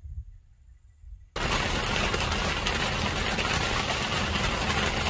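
Steady rain, a dense hiss with fine pattering over a low rumble, starting abruptly about a second in after a faint low rumble.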